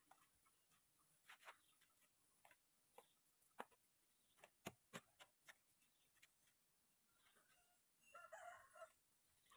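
Hoe blade scraping and chopping through a dry sand-and-cement mix in irregular strokes, faint. About eight seconds in, a rooster crows briefly, the loudest sound here.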